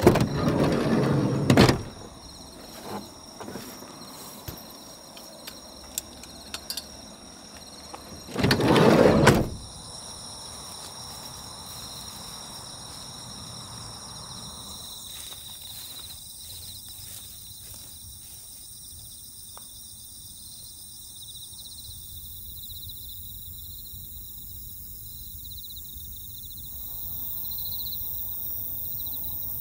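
A Renault Kangoo's sliding side door being rolled, two loud rushing slides: one right at the start, another about eight seconds in. Steady high insect trilling runs under it, with a few faint clicks.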